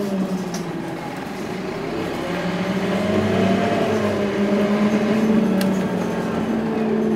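Scania OmniLink single-deck bus's engine and drivetrain heard from inside the passenger cabin, a steady hum that rises in pitch and grows louder as the bus pulls away, then eases off near the end.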